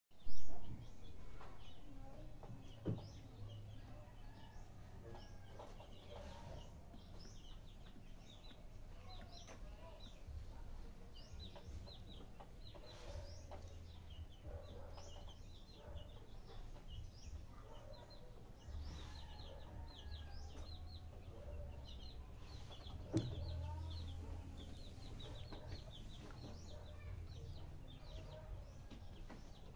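Chickens clucking, with many short, high bird chirps scattered throughout. A sharp knock comes right at the start and another about three-quarters of the way through.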